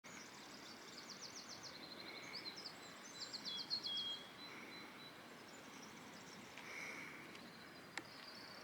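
Small songbirds singing outdoors: high, fast trills and twitters, with a softer call repeating a few times, over a faint steady hiss. A single sharp click near the end.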